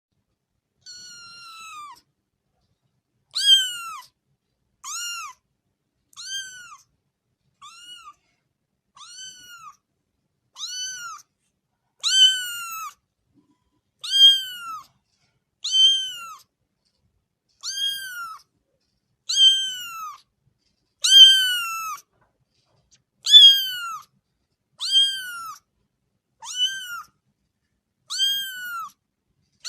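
A kitten meowing over and over, about one high-pitched meow every one and a half to two seconds. Each meow rises and then falls in pitch. The first meow is faint, and the later ones are louder.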